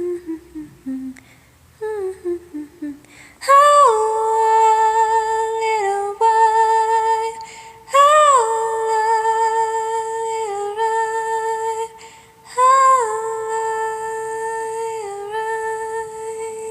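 A solo voice humming the song's closing melody with no accompaniment: a few short falling notes, then three long held notes, each swooping down in pitch at its start.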